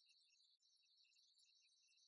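Near silence, with only a faint, high, steady chirr and scattered tiny chirps.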